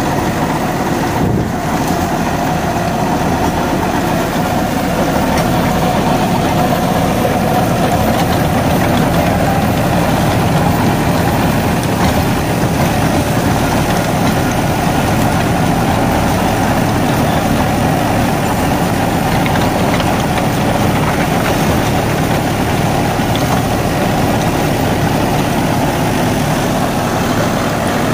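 Deutz-Fahr Agrolux 80 tractor's diesel engine running steadily under load, driving a Shaktiman Tusker rotavator whose tines churn soil and chopped banana stalks. The sound grows slightly louder about five seconds in and then holds steady.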